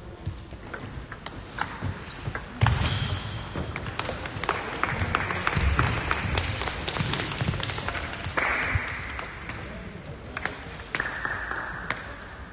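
Table tennis ball clicking sharply off bats and the table in quick strokes, with a heavier thump about two and a half seconds in.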